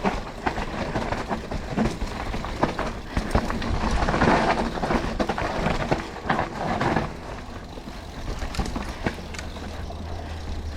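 Mountain bike rattling and knocking as it rolls fast down a rough dirt trail, tyres over bumps, with louder rushes of noise twice, then smoother and quieter near the end.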